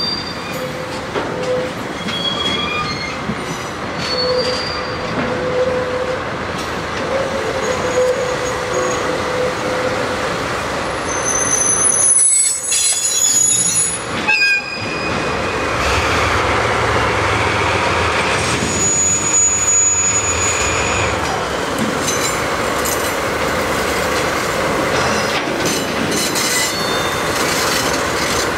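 A pair of DD51 diesel-hydraulic locomotives running while shunting tank wagons at low speed, with short high-pitched wheel squeals coming and going from the wheels on the yard's curves and points.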